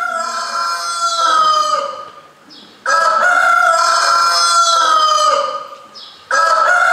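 Recorded rooster crowing, played as a stage sound effect to mark dawn: three long crows in a row, each about two seconds.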